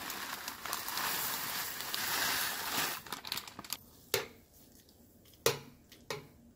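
A plastic zip-top bag crinkling as dried dog food is shaken out of it into a pot of hot water, for about three seconds. Then a metal spoon stirring in a stainless steel saucepan, knocking against the pot three times.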